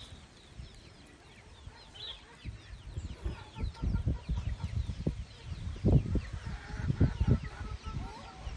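Chickens clucking and calling in short falling notes, over the rustling and low bumps of a chicken being held and handled.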